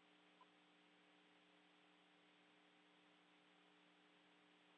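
Near silence: a faint steady electrical hum and hiss, with one tiny blip about half a second in.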